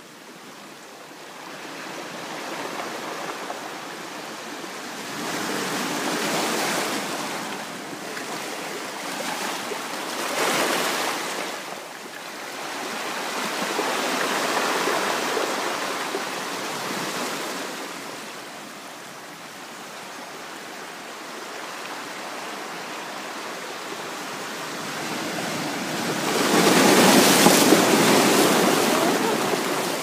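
Sea waves washing in over a beach of rounded stones and drawing back, swelling and fading every few seconds, with the loudest surge near the end.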